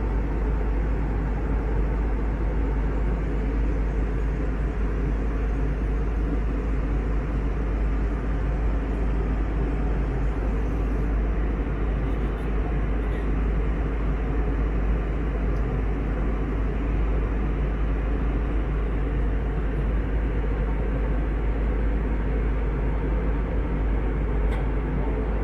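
Steady cabin noise of a jet airliner in flight, heard inside the cabin: an even, low rumble of the engines and the air rushing past the fuselage.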